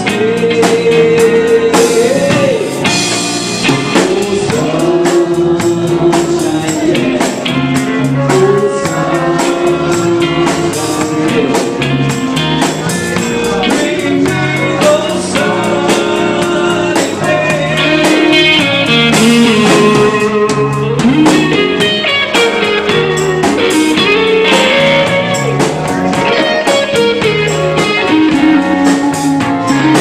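Live rock band playing a Latin-rock instrumental: electric lead guitar holding and bending long notes over drum kit, hand percussion, keyboards and bass guitar.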